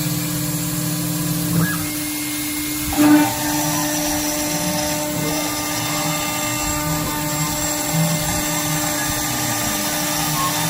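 CNC router spindle running at high speed while milling aluminum: a steady, drill-like whine of several held tones. About three seconds in there is a short louder burst, and the whine takes on extra higher tones.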